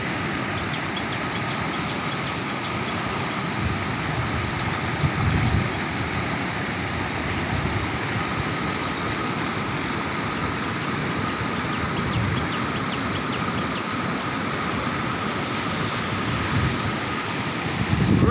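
Swollen river in flood, muddy water rushing fast over its bed with a steady rushing noise. A brief low buffeting, wind on the microphone, comes about five seconds in.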